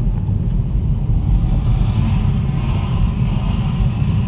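Car engine and road noise heard from inside a moving car: a steady, heavy low rumble with faint rising and falling engine tones.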